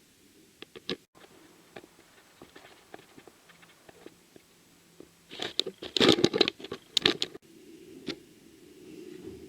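Light clicks and taps from handling small hard objects, with a louder burst of rattling clatter from about five to seven seconds in.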